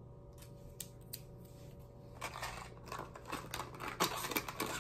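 Small clicks from handling press-on nails, then from about two seconds in a dense, scratchy run of clicks and rustling as a plastic press-on nail package is handled with a small tool.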